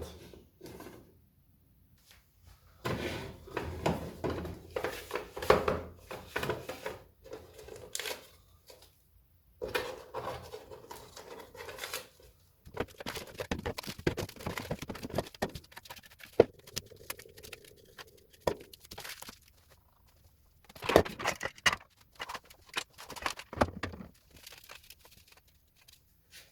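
Hand work on a 3D-printed PLA helmet part: irregular bouts of scraping and rubbing with clicks between short pauses, and a steady hum twice, about ten seconds in and again near the middle.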